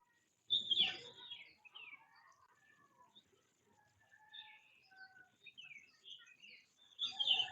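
Ringneck parrots calling: a loud harsh call about half a second in and another near the end, with soft chirps and chatter between.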